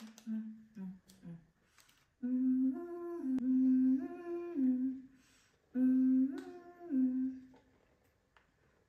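A person humming a tune with closed lips: two short phrases of held notes that step up and down, separated by a brief pause.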